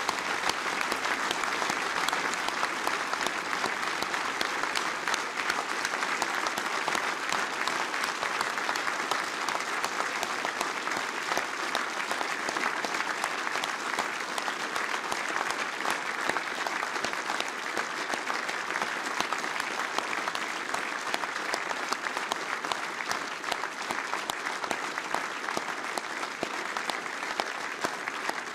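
A crowd applauding steadily, dense clapping without a break.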